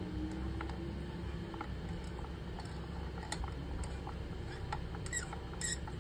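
Faint scattered clicks and scrapes of fingers handling a CPU cooler's mounting screws on a motherboard, with a few sharper clicks near the end, over a steady low hum.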